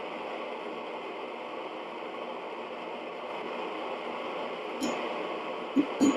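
Single propane forge burner running with a steady hiss. Near the end there is a light metallic click, then two sharp metal strikes that ring briefly.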